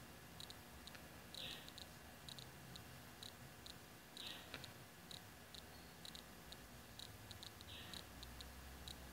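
Near silence: room tone with faint, scattered ticks and a few soft brief hisses.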